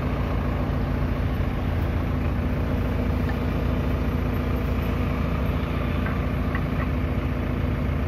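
A JCB 3DX backhoe loader's diesel engine idling steadily.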